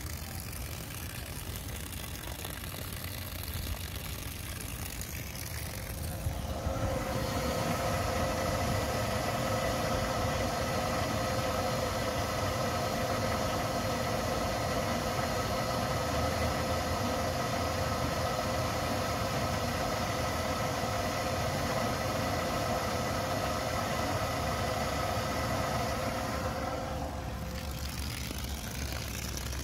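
Rule 500 GPH electric bilge pump running and pumping water overboard: a steady, even hum that comes up about six seconds in and drops away again near the end. Either side of it there is only a soft hiss.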